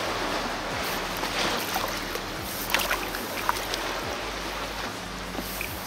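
Steady water and wind noise around a kayak, with a few light clicks and knocks about halfway through as a small barbel is handled and lifted out of the water by the line.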